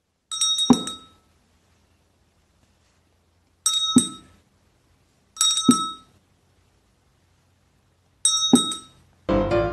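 A small metal hand bell rung by a rabbit tugging its handle with its teeth. It gives four short bouts of ringing, a few seconds apart, each with a couple of strikes and a dull knock.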